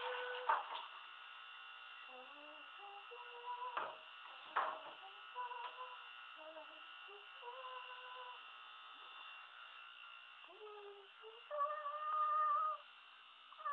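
A slow melody of single held notes at stepped pitches, with a few short knocks about half a second, four and four and a half seconds in. It is loudest near the end.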